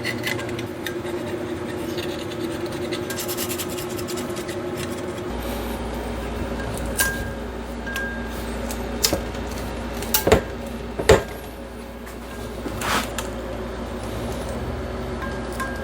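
Scraping of old gasket remnants off the Vortec 350's intake manifold and cylinder head mating surfaces: steady rubbing and rasping, broken by a few sharp clicks or knocks in the middle.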